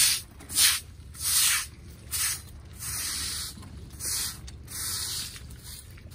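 A stiff-bristled broom scrubbing wet paving stones in a series of short, hissing strokes, about one every half second to second. Near the end, water is poured from a cup onto the stones.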